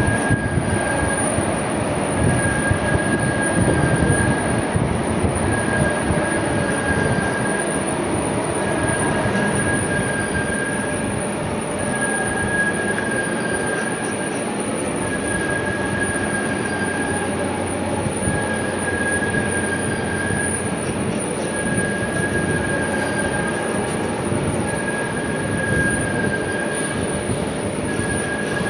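Heavy Skoda lathe turning a large-diameter steel pipe, with the machine running steadily under the cut. A high squeal from the cutting tool comes and goes about every two seconds.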